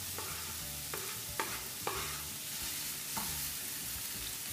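Diced onion sizzling in sunflower oil in a frying pan as it starts to fry, with a steady hiss. A wooden spatula scrapes it off a wooden board and stirs it, giving a few short knocks.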